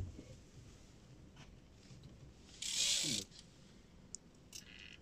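Fishing reel on a heavy rod under load from a hooked fish: a short buzz of line pulled off against the drag about two and a half seconds in, followed by a few faint clicks.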